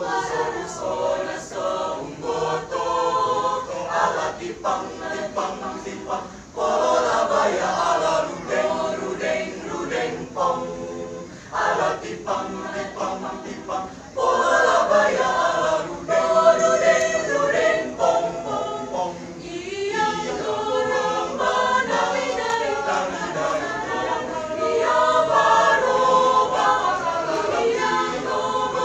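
Mixed choir of men and women singing, with short breaks between phrases.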